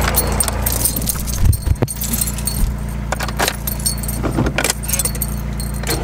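Car keys jangling and clinking at the ignition in irregular bursts, over the steady low hum of the car's engine idling.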